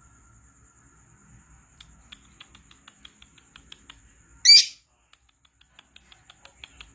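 Lovebird singing: a rapid run of short, sharp chirps, broken about halfway through by one loud shrill squawk, then more chirps.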